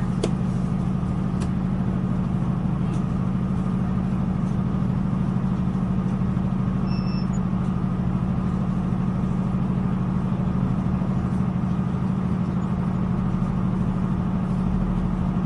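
Inside a moving diesel passenger train carriage: a steady low drone from the underfloor engine and running gear, with a few faint clicks in the first seconds.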